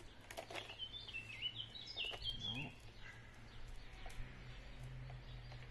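A songbird singing one short phrase of high notes that step up and down, about a second in. A few faint clicks come just before and during it, over a low steady hum.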